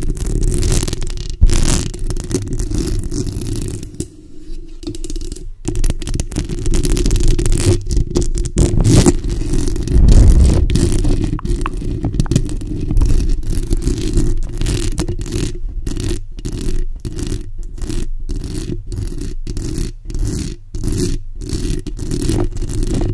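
Long nails and fingertips scratching and rubbing directly on the bare metal mesh grille of a desktop microphone, a loud, close, bassy scratching. In the last third it falls into a rhythm of separate strokes about twice a second.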